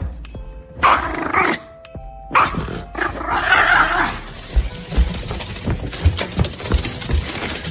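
A dog vocalizing in two loud, rough bursts about a second apart, over background music with a steady low beat.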